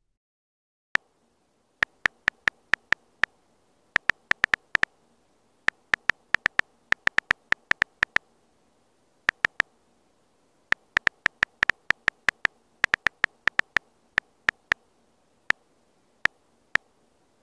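Key-press clicks of a phone's on-screen keyboard during typing. The clicks are short and sharp and all sound alike. They come in quick runs of several a second, with brief pauses between runs.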